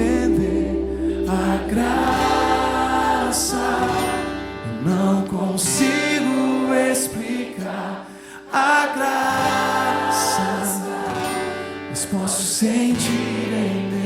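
Live worship song: sung voices over instrumental accompaniment. A low sustained bass drops out about five seconds in.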